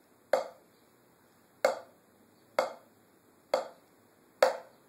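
Slow single drumstick strokes on a drum practice pad, about one a second, each a short sharp tap with a quick decay, the stick left to rebound off the pad.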